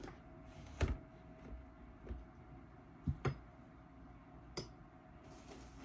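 A few short knocks and clicks, the loudest about a second in and a quick pair near the middle, over a faint steady hum.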